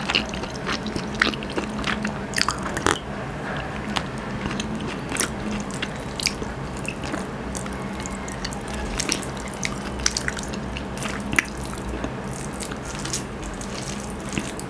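Close-miked eating sounds: chewing, with many small irregular wet clicks as fingers press and mix sticky rice on a banana leaf. A faint steady low hum runs underneath.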